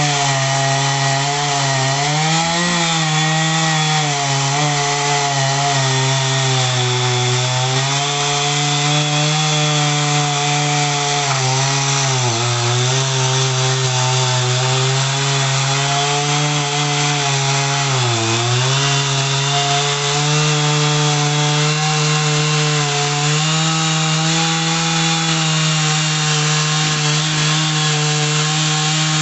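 Two-stroke chainsaw running at high revs while cutting through eucalyptus logs. Its pitch dips briefly as the chain bites and loads up, about three times, then recovers.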